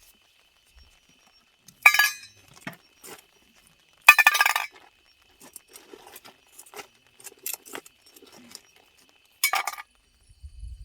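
Hard objects clinking and knocking as they are handled: three sharp clinks with a short ringing tail about two, four and nine and a half seconds in, with lighter clicks and taps between.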